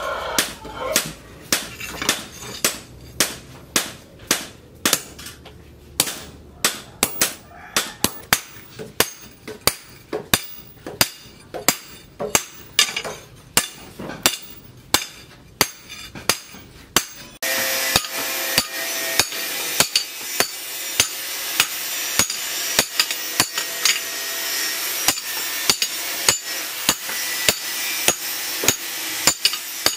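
Hand hammer striking a steel cleaver blade forged from leaf spring on a steel post anvil, sharp ringing blows about twice a second. A little past halfway a steady hiss joins and carries on under the blows.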